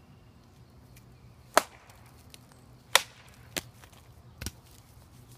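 Wood knocks: a wooden stick struck hard against a tree trunk, two sharp loud knocks about a second and a half apart, then two fainter ones. This is the knock used by Bigfoot researchers to try to get a response.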